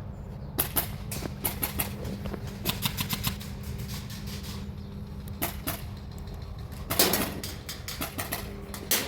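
Airsoft guns firing in several short rapid bursts of sharp cracks, with a steady low hum underneath.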